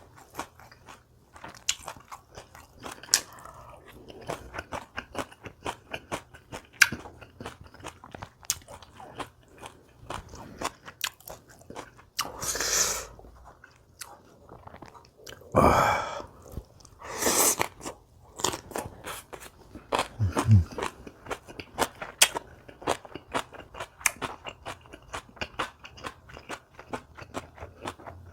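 A person eating kimchi, close to the microphone: rapid crisp crunching and wet chewing. A few longer, louder rushes of noise come about halfway through.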